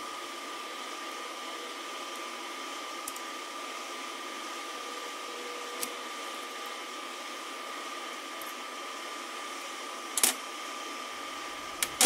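Steady background hum with a thin constant whine, and a few light metal clicks as the parts of a clamp-style knurling tool are handled, the loudest about ten seconds in.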